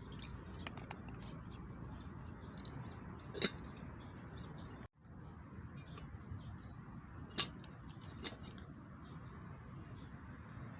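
Wood bonfire crackling under a steady hiss, with a few sharp pops, the loudest about three and a half seconds in and twice more near the end.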